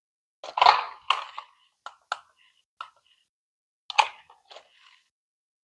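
Short, irregular clicks and rustles of a plastic toy buggy and its packaging being handled, about ten in all, the loudest near the start and again about four seconds in.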